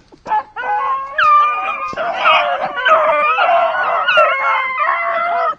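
A pack of beagles baying and howling as they run a rabbit's track. From about a second in, several dogs cry at once, overlapping almost without a break.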